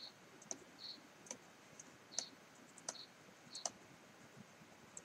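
Faint, irregular clicks and taps of a stylus on a tablet screen during handwriting, with a few brief scratchy hisses between them.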